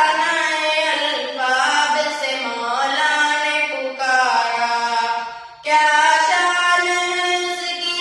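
A boy's voice singing a naat, an Urdu devotional song, into a microphone in long gliding, ornamented phrases, with a brief break for breath about five and a half seconds in.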